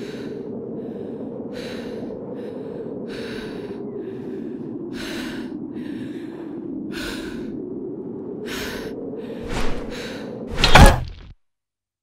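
Footsteps crunching through snow, about one step a second, over a steady howling wind. Near the end come two heavy thuds, the second much louder, and then the sound cuts off.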